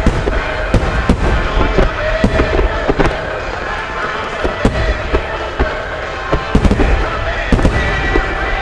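Starmine fireworks barrage: aerial shells bursting in quick irregular succession, a strong boom every second or so with smaller bangs and crackle between.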